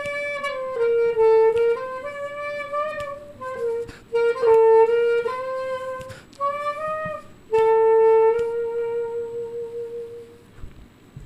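Clarinet playing a slow melody alone, one line of sustained notes, ending on a long held note that fades out near the end.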